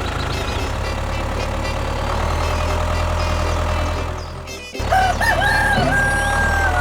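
A steady low hum that cuts off abruptly, then a rooster crowing: one call in a few wavering notes ending in a long held note.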